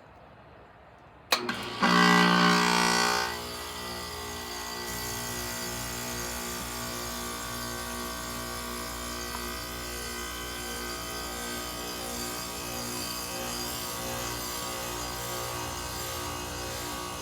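Goodman GSZ14 heat pump outdoor unit during a defrost cycle: a sharp click about a second in, then the compressor starts with a loud buzzing whoosh of refrigerant for about a second and a half before settling into a steady hum.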